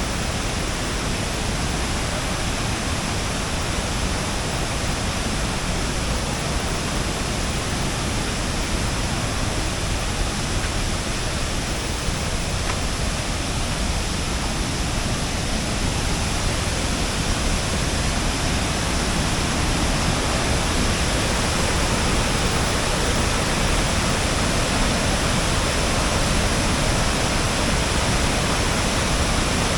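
Waterfall cascades rushing: a steady, loud wash of falling water, growing a little louder over the second half.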